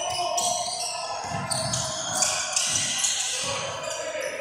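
A basketball being dribbled on a hardwood gym floor, its bounces heard as irregular low thumps, with short high-pitched sneaker squeaks as players cut on the court.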